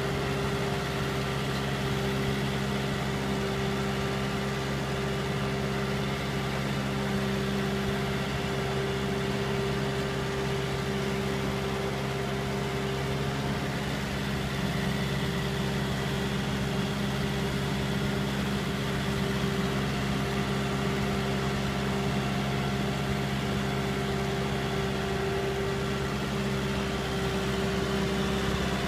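Kubota M6040 tractor's four-cylinder diesel engine running steadily with an even, unchanging note as it pulls a loaded trailer through deep paddy mud.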